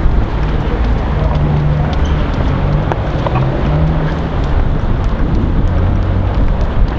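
Wind buffeting the microphone: a loud, gusting low rumble with no pauses.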